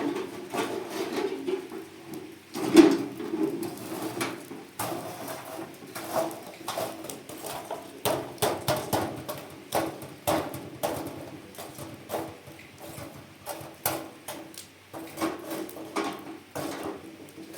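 A long series of irregular knocks and taps, the loudest about three seconds in, over a steady low hum.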